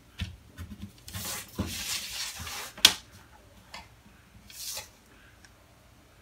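Kraft pattern paper rustling and sliding across a table as the sheet and a cloth tape measure are shifted into place, with a sharp tap about three seconds in and a shorter rustle a little later.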